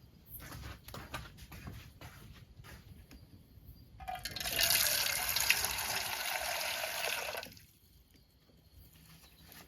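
Light clicks and knocks, then water pouring for about three and a half seconds before it stops sharply.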